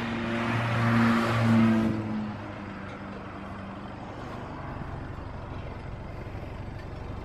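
A vehicle engine pulling hard, loudest for about two seconds near the start, then settling into steady driving noise.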